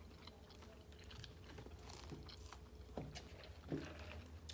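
Faint eating sounds: scattered small clicks and taps of chewing and a plastic utensil on a food tray, over a low steady hum. Two slightly louder clicks come near the end.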